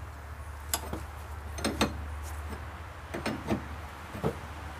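Metal spanner clicking and knocking on a Citroën 2CV's steering track-rod adjuster as it is turned to set the tracking: about six sharp clicks, some in quick pairs, over a low steady hum.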